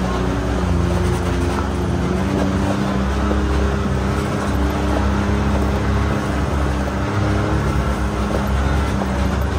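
Can-Am Maverick X3 side-by-side's turbocharged three-cylinder engine running under way, steady and loud, its pitch shifting slightly up and down with the throttle.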